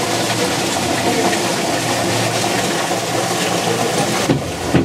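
Steady rushing and rumbling from the Lynton & Lynmouth water-powered cliff railway car, with a brief drop in the hiss near the end.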